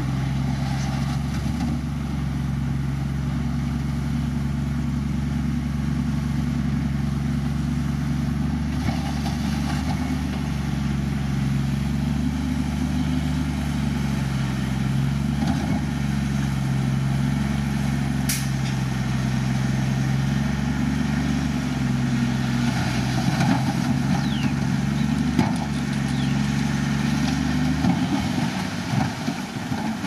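Heavy construction machine's diesel engine running at a steady, even speed. The steady note breaks off and turns rougher near the end.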